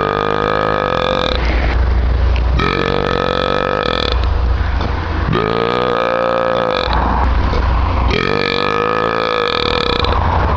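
A man belching four long, loud, drawn-out burps in a row, each about one and a half to two seconds long, sliding up in pitch at the start and then held.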